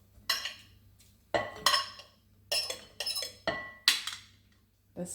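A utensil knocking and clinking against dishes about seven times as chopped onion is tipped into the salad bowl, several of the knocks ringing briefly.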